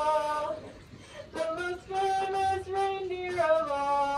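A woman singing a slow tune in long held notes, with a short pause about a second in and the melody stepping down near the end.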